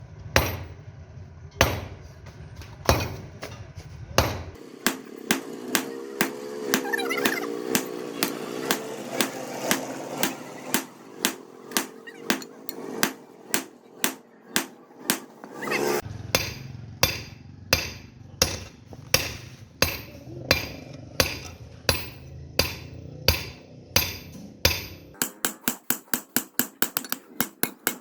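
Blacksmith's hand hammer striking steel on an anvil while forging a trowel blade: a steady run of sharp ringing blows, about two a second, quickening to about four a second near the end. A voice is heard faintly behind the hammering in the middle.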